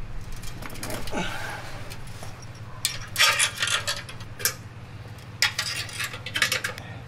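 Light metallic clinks and scrapes in several short clusters as a metal catalytic-converter shield plate and its bolts are handled and fitted by hand against the shield under a truck.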